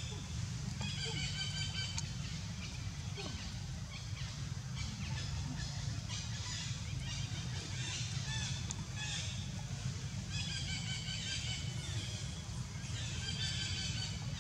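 Bouts of high-pitched animal calls, each lasting a second or two and coming several times, over a steady low rumble.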